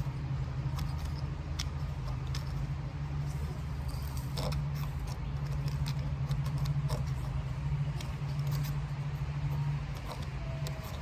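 Light scratching and rustling of string being pulled and tied around a pine cone, in scattered small clicks, over a steady low hum.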